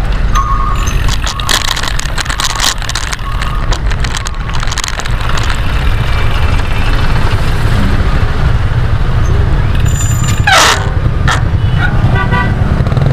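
Wind noise on the microphone of a moving bicycle, with road traffic going past. Near the end a falling whistle-like sweep, then a few short horn toots.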